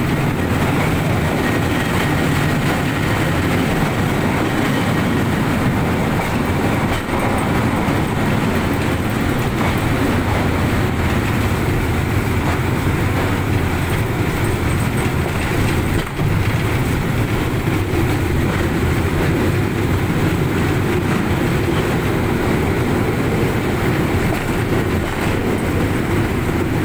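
Small rail car running along railway tracks inside a tunnel: a steady rumble of wheels on rails.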